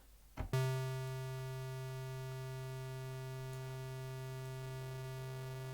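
Massive software synthesizer's oscillator 1 sounding a sustained, buzzy note rich in overtones. Its waveform is distorted by the oscillator modulation. The note comes in just after a mouse click about half a second in, and a faint rising sweep appears in its overtones near the end.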